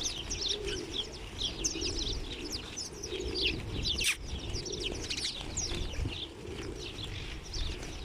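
A flock of house sparrows chirping, many at once, in a dense unbroken chatter of short, quick notes as they crowd a hand to feed.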